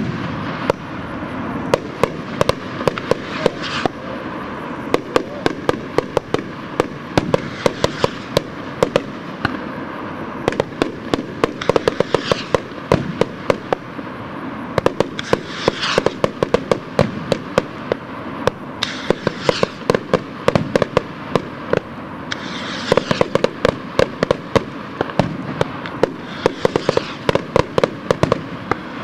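Hand-made skyrockets being fired in quick succession: every few seconds a hissing rush of a rocket motor climbing, over a constant crackle of sharp pops and bangs from bursts and reports.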